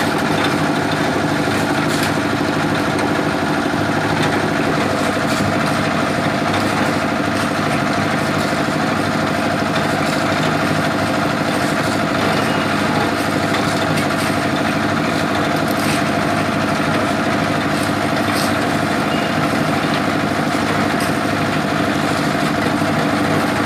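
Concrete mixer's engine running steadily, a constant drone with a few faint clicks over it.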